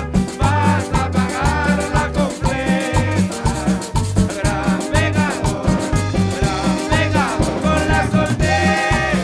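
Background cumbia music with a steady bass beat.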